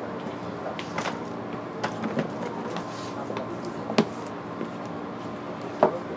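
Inside a stopped 205-series electric train car: a steady hum from the waiting train, with a few sharp knocks and clunks, the loudest about four seconds in and again near the end.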